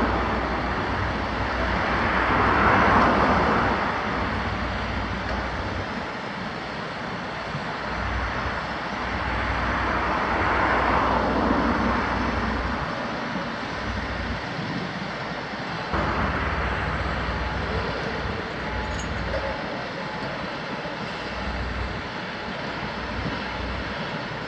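Steady broad rushing background noise that swells twice, about two to four seconds in and again about ten to twelve seconds in, over a low rumble that comes and goes, with a single sharp click about sixteen seconds in.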